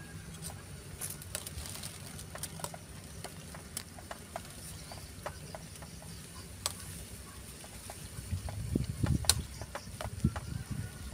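Metal spoon clinking and scraping against a stainless steel bowl of sliced vegetables, in scattered, irregular light clicks. Near the end come a few louder low thumps and a rumble.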